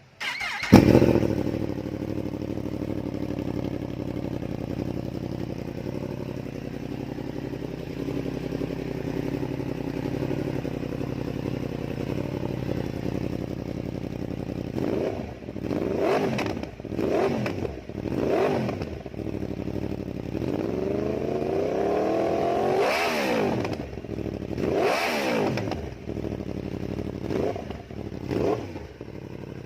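Kawasaki Ninja 1000's inline-four engine, breathing through an R1 full-system exhaust, starts up and idles steadily. From about halfway it is blipped in short revs, with one longer rev that climbs to a peak and drops, then a few more quick blips near the end.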